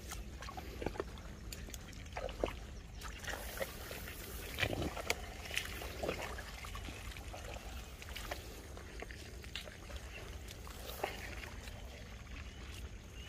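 Hands working in the wet mud and water of a field-crab burrow: scattered small squelches, splashes and trickles.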